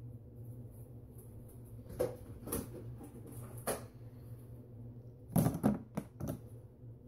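Rustling of coily hair and clip-in extensions being handled and parted with the fingers, in short bursts starting about two seconds in, loudest near the end, over a steady low electrical hum.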